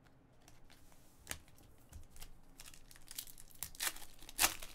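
Foil wrapper of a trading card pack crinkling and tearing as it is opened by hand, starting as a few scattered crackles and growing louder and denser near the end.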